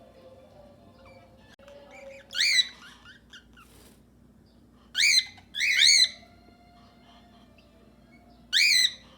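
Cockatiels calling: four loud, short arched calls that rise and fall in pitch, about two and a half seconds in, twice around five to six seconds, and once near the end, over faint softer bird chatter.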